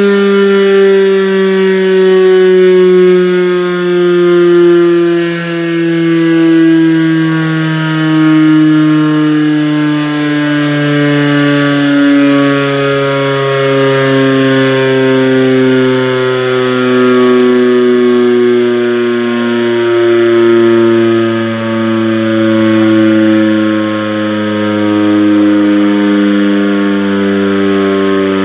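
Fire station siren sounding one long, loud wail whose pitch falls slowly and steadily.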